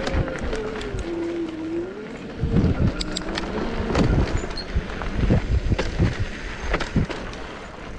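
ENGINE X electric bike on a rough off-road trail: the motor's thin whine dips in pitch and rises again over the first couple of seconds. After that come repeated knocks, thumps and rattles as the bike rides over bumpy, rooty ground.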